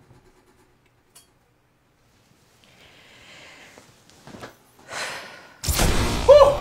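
A few seconds of near quiet with faint small clicks and a short hiss, then, near the end, a sudden loud whooshing sci-fi sound effect of a time portal opening, with wavering tones that glide up and down.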